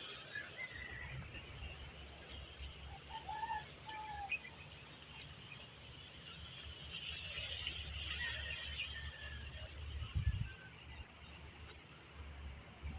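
Countryside ambience: a steady high insect drone with short bird chirps scattered through it. Low rumble of wind on the microphone, with a thump about ten seconds in.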